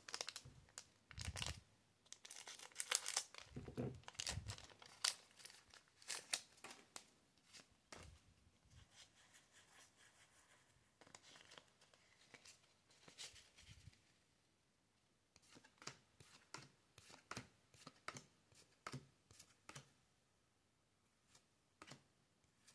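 Foil Pokémon TCG booster pack wrapper crinkling and tearing as it is opened by hand over the first several seconds. Later comes a run of short, quick clicks and slides as the trading cards are flipped through one by one.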